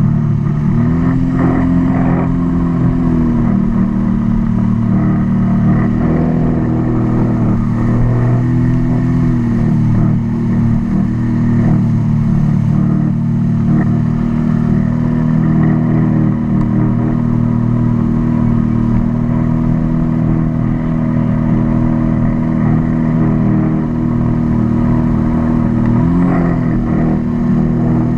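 Personal watercraft engine running at speed across the water, a steady loud drone whose pitch rises and falls back a few times as the throttle changes, with wind and water rushing past.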